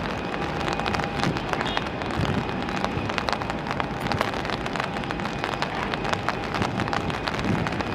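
Steady noisy rumble of a departing Airbus A330's jet engines as the airliner climbs away, with a scatter of crackles.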